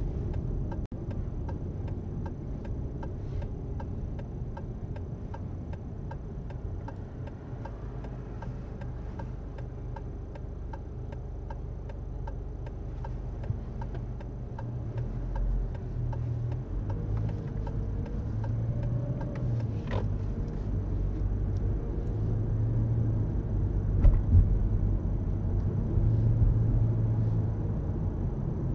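Car's turn-signal indicator ticking steadily over low engine and road noise inside the cabin as the car makes a turn. From about halfway through, the engine and tyre noise rises as the car picks up speed, with a sharp knock about twenty seconds in and a louder one about twenty-four seconds in.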